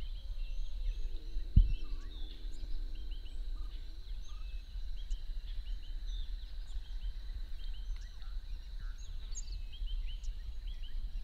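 Bush ambience of many birds chirping in short calls over a steady high hum and a low wind rumble, with a single low thump about one and a half seconds in.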